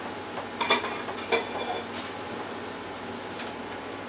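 Saucepan of potatoes in broth bubbling on a gas stove, with a couple of sharp clinks of dishes about a second in.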